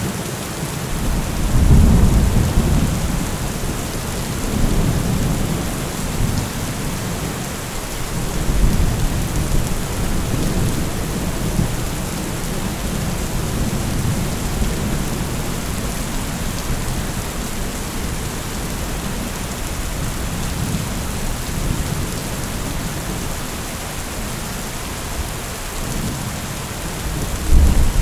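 Heavy rain pouring steadily with thunder rumbling low at intervals. The rumbles swell about two seconds in, again around five and nine seconds, and most strongly right at the end.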